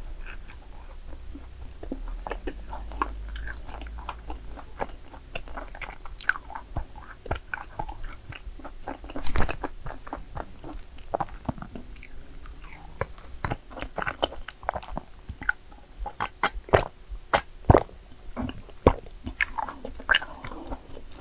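Close-miked chewing and biting of yakgwa cookies: irregular crisp crunches that come thicker and louder after the first few seconds.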